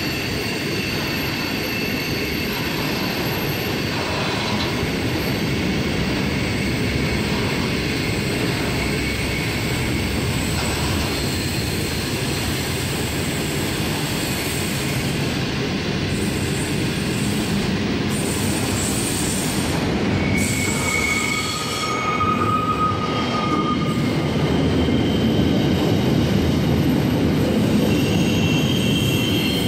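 Freight train's container wagons rolling past at speed: a steady rumble of steel wheels on the rails, with high-pitched wheel squeals that come and go, the strongest about two-thirds of the way through.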